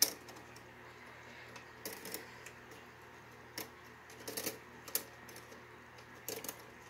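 Faint, irregular clicking of LEGO plastic parts as a segmented black ladder arm is pulled out to its full height, with small ticks singly and in quick pairs every second or so.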